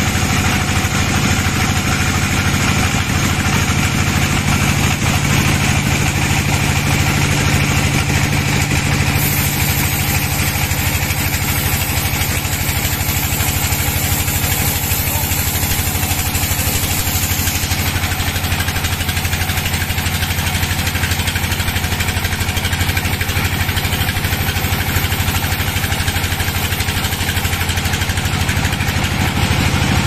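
Band sawmill running steadily with a low machine drone as its blade saws a log lengthwise into slabs; a higher hiss joins in about a third of the way through and stops a little past halfway.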